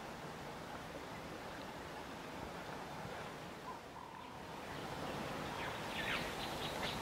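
Outdoor grassland ambience: a steady even hiss, joined about two-thirds of the way in by a quick run of short, high bird chirps.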